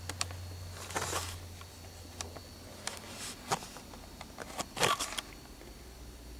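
Scattered small clicks and two brief rustles, about a second in and just before five seconds, over a steady low hum.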